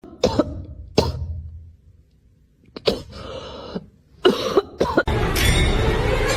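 Several short, sharp coughs or hacking bursts, then from about five seconds in a louder, steady noisy sound.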